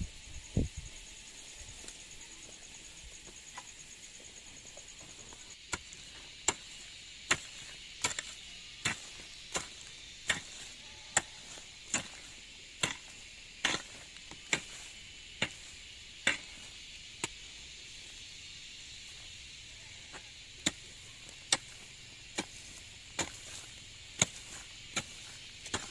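A hand tool chopping in steady, even strokes, a little more than one a second, beginning about six seconds in, pausing for a few seconds, then resuming. A steady high insect buzz runs underneath.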